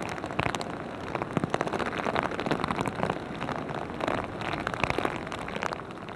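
Rain pattering on a surface: a steady dense patter of many small, irregular drops and clicks.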